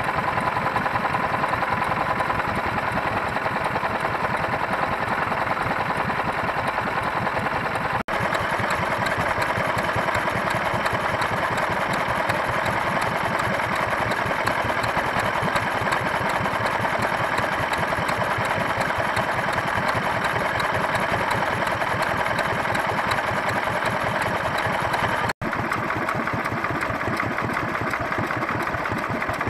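Vintage stationary engines running steadily, a fast even beat of firing strokes.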